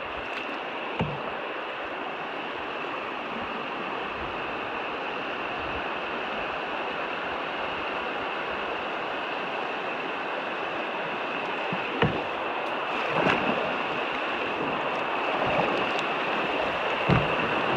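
Steady rush of a river rapid around a canoe, growing a little louder toward the end, with a few brief knocks.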